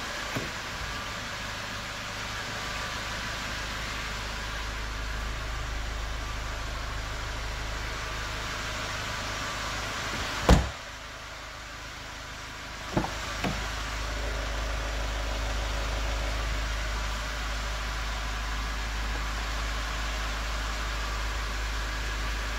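Steady low hum with a few sharp knocks. The loudest is a single thump about ten and a half seconds in, followed by two lighter knocks a couple of seconds later.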